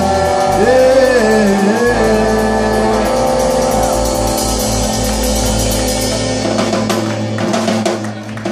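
Live rock band playing: electric guitar, bass and drum kit together, with bending held notes in the first couple of seconds. The band thins out and drops away near the end.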